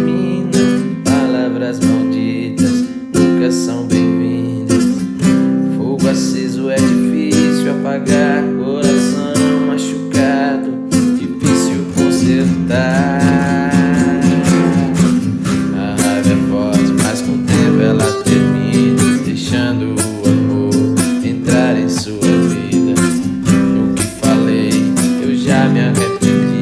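Acoustic guitar strummed in a steady rhythm, playing chords as the accompaniment to a song.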